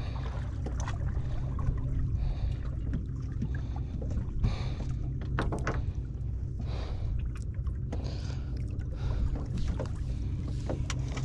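Small fishing boat on open water: a steady low rumble of water against the hull and wind, with a few light clicks and knocks, most of them around the middle.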